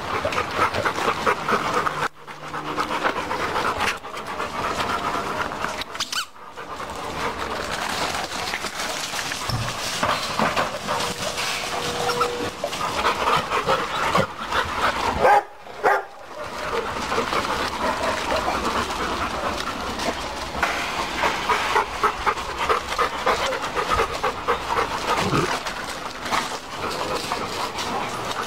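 Several Labrador retrievers panting steadily as they play and move about, paws scuffing on gravel, with a few brief drop-outs.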